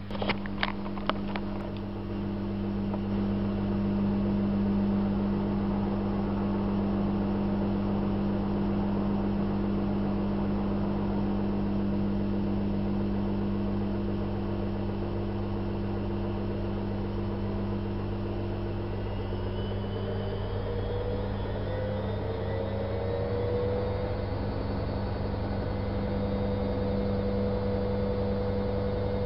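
Privileg Single 42614 washing machine running, with a steady low hum and a few clicks in the first second or so. About two-thirds through, its motor whine rises in pitch as the drum speeds up, then levels off.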